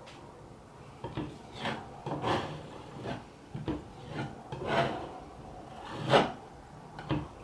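A spatula scraping fiberglass Bondo filler across a wall in a series of irregular strokes, smoothing the patch and taking off the excess; the loudest stroke comes about six seconds in.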